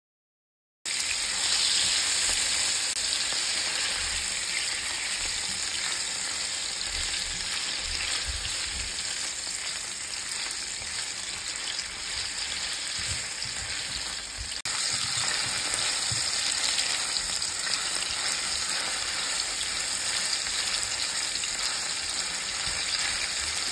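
Cut-up sausage pieces sizzling steadily in hot vegetable oil in a frying pan. The sizzle starts suddenly about a second in, with a few soft knocks as the pieces are stirred with a silicone spoon.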